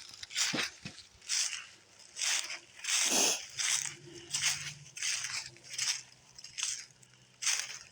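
Footsteps crunching through dry, flattened corn stalks and leaves at a steady walking pace, about one crackling step a second.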